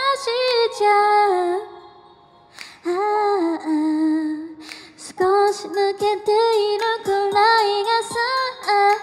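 A woman singing a pop song into a microphone through a PA, over a backing track with a steady beat. Her voice drops out briefly about two seconds in and comes back softer before picking up again.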